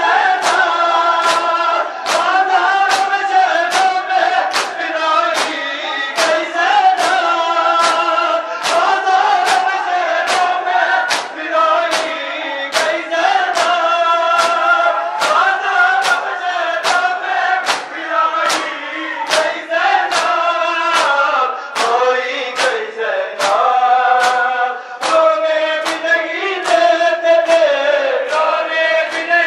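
Crowd of men chanting a nauha (Shia mourning lament) together, kept in time by the steady slaps of hands beating bare chests (matam), about two strokes a second.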